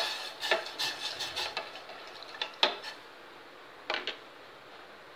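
Metal spoon stirring in a stainless steel pot of water and spice powder, clinking and scraping against the pot's side for about three seconds. Two quick clinks follow about four seconds in, then only a faint steady hiss.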